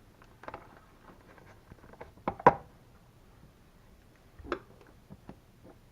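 A few sharp plastic clicks and knocks from a replacement outlet cover plate being handled and fitted over a wall receptacle. The loudest click comes about two and a half seconds in, another about four and a half seconds in.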